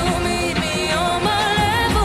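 Background music: a pop song with a sung melody over a steady beat.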